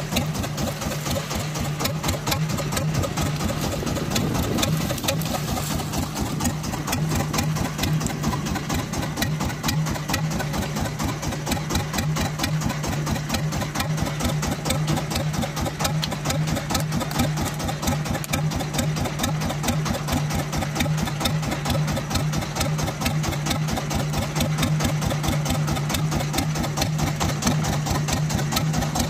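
Fishing boat's engine running steadily, a low hum with a fast, even beat of pulses.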